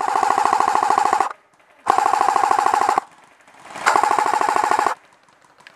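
Airsoft gun firing on full auto in three rapid bursts of about a second each.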